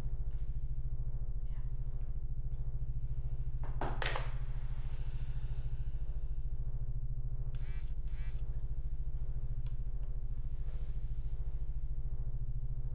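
A low, steady, rapidly pulsing drone of suspense film score, the same pitch throughout. A few brief, fainter sounds come over it, about four seconds in and again near eight seconds.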